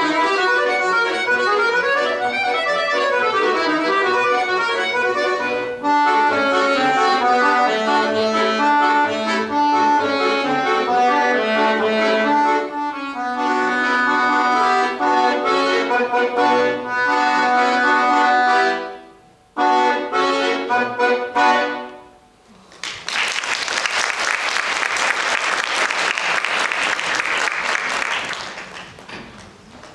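Solo accordion playing a lively piece with held chords and running notes, finishing on a final chord about 22 seconds in. Applause follows for about six seconds and fades away near the end.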